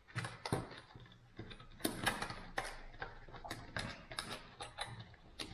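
Plastic fishing-lure packaging being handled as a lure is put back in: irregular clicks and crackles.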